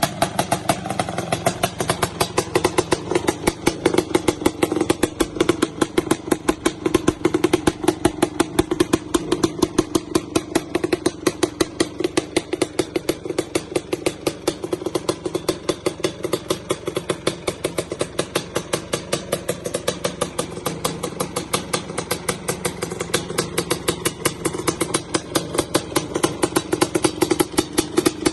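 Suzuki LT500R Quadracer's 500cc two-stroke single running steadily at low revs with an aftermarket pipe, an even beat of exhaust pulses with no rise or fall in speed, as the carburettor jetting is being dialled in.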